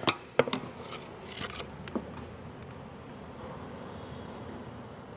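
A few light clicks and taps from handling the oil filter base and its O-rings during the first two seconds, then only faint background noise.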